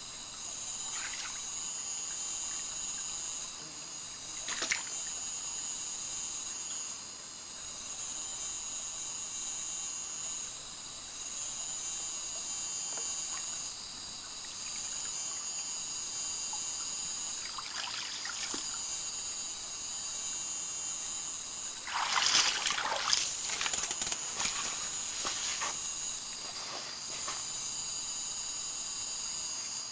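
Shallow stream water splashing and sloshing as a person wades and reaches into it. A few separate splashes come first, then a louder cluster about three-quarters of the way through, all over a steady high insect buzz from the surrounding forest.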